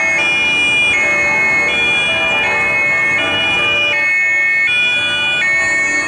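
Two-tone German police siren (Martinshorn) on a BMW 5 Series Touring patrol car, alternating between a high and a low tone about every three-quarters of a second.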